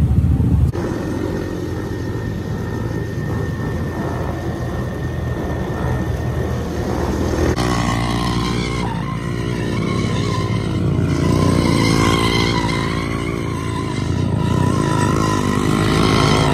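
Mini bikes' small engines running and revving as riders pull wheelies, the engine note rising and falling, busier and slightly louder from about halfway.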